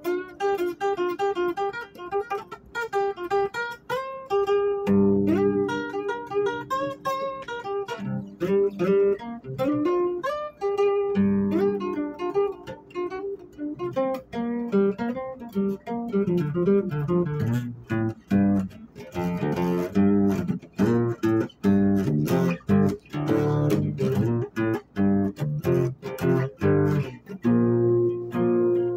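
Acoustic guitar music: picked notes over a bass line, turning to quick strummed chords from about halfway through.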